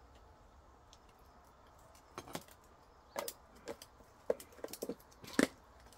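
Tableware clicking and clinking, chopsticks and utensils tapping on dishes at a meal: a dozen or so light, scattered knocks starting about two seconds in, the loudest near the end.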